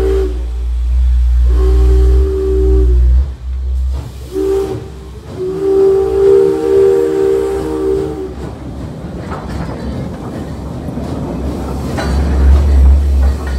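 Small steam locomotive's chime whistle sounding four blasts in a short, long, short, long pattern, each a chord of three notes, warning at a grade crossing. After that the train passes close by with a hissing rush and low rumble, and a few wheel clicks near the end.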